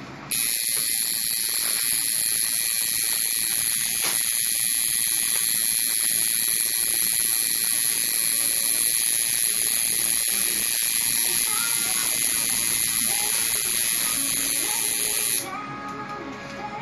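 Electric tattoo machine buzzing steadily as it needles skin. It switches on just after the start and cuts off suddenly about 15 seconds in.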